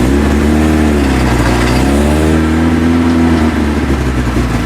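Opel Kadett D estate's petrol engine running, its speed rising and falling back twice, the second time longer.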